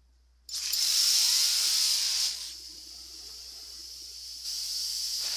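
A harsh, loud hissing sound effect from the anime soundtrack that cuts in suddenly about half a second in, with a faint gliding whine under it. It drops back after about two seconds and rises again near the end.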